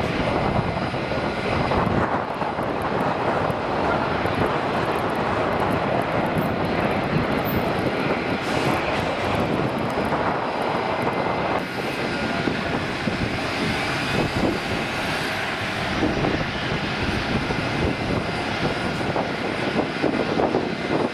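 Steady jet-engine noise from a Gulfstream twin-engine business jet rolling along the runway. About twelve seconds in, it changes to the steady engine noise of an Airbus A320-family airliner on the runway.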